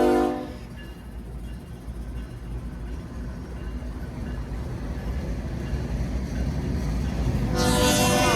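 Freight train rolling slowly past behind its locomotives: a low, steady rumble that grows gradually louder. The tail of a train horn cuts off at the very start, and a louder burst comes in near the end.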